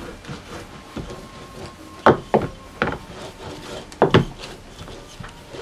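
A few sharp wooden knocks and clatters as objects are handled and set down on a wooden table: four distinct knocks, three close together about two seconds in and one more about four seconds in.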